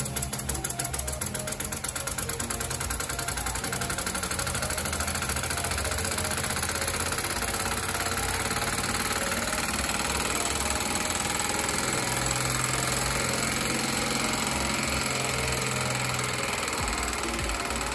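Homemade single-cylinder steam engine running fast, fed from a soda-can boiler, with a hiss of escaping steam. Its quick, even strokes speed up over the first few seconds until they blur into a steady rattling run.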